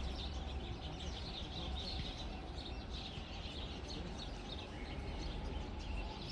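Small birds chirping and twittering in many short, scattered calls over a steady low rumble of outdoor background noise.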